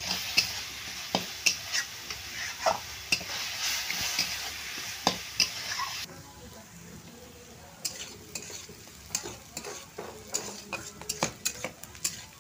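Food sizzling in a hot metal kadai while a metal spatula stirs, scraping and knocking on the pan. About six seconds in the sizzle cuts off abruptly, leaving a quieter stretch of frequent spatula scrapes and clicks as the food is stirred.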